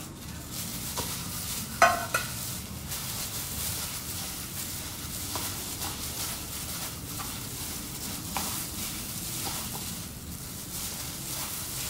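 Canned tuna being mixed by hand in a bowl, a thin plastic glove crackling and rustling with soft squelches and scattered light clicks. A sharp knock comes about two seconds in.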